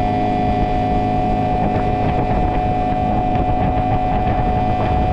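Outboard motor running at a steady speed with the boat underway, holding one even pitch throughout, with wind buffeting the microphone.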